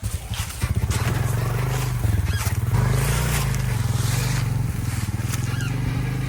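Freshly rebuilt Honda Rancher 350 ATV's single-cylinder four-stroke engine running under way. Its pitch rises a little about two and a half seconds in, then eases back.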